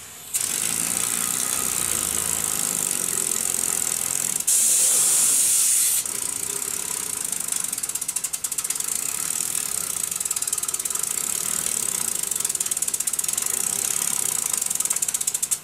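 Small model steam locomotive with a double-acting oscillating-cylinder engine running under steam: a steady hiss of steam with a fast, even ticking like a ratchet, which grows clearer in the second half. A louder surge of hiss comes about four to six seconds in, and the sound cuts off abruptly at the end.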